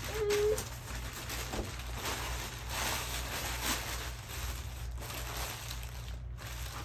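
Packaging rustling and crinkling as it is handled, in irregular scrapes and crackles, with a short steady tone right at the start.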